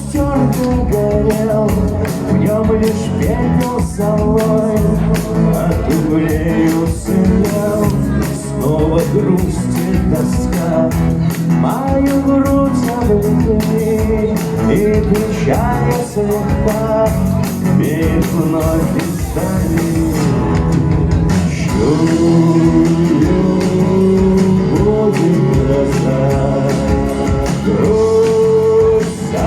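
Man singing a rock song live over a strummed acoustic guitar.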